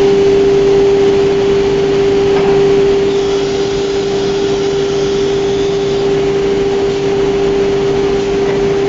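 Disc-type automatic tool changer CNC router running: a loud, steady hum with one strong held tone over a whirring noise of its running equipment.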